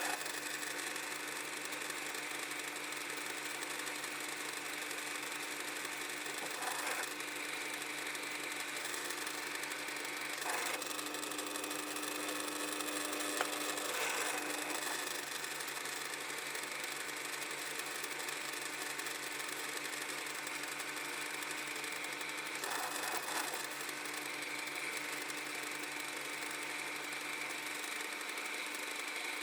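Drill press running steadily, drilling a hole through a tow ball.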